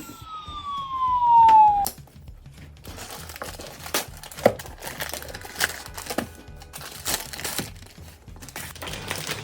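A loud descending whistle-like tone glides down for about two seconds, then scattered clicks and crinkling from toy packaging being handled.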